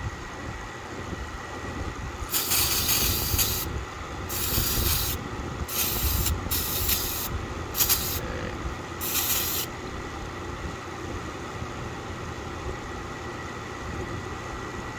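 Six short hissing bursts of pressurised spray, a second or less each, between about two and ten seconds in, during cleaning of a motorcycle clutch slave cylinder's parts.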